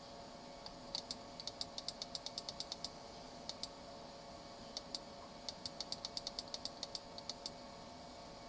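Sharp clicks from working a computer's controls, in quick runs of about five a second with a few single clicks between, over a steady faint hum of the running machine.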